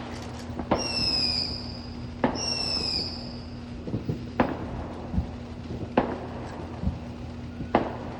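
Fireworks: two whistling fireworks, each a high whistle about a second long that falls slightly in pitch, followed by three sharp bangs about a second and a half apart.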